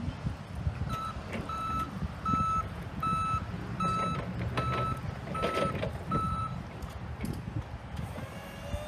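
Hyster electric forklift's reverse alarm beeping: eight short beeps of one pitch, about three-quarters of a second apart, starting about a second in and stopping about six and a half seconds in, over a low rumble.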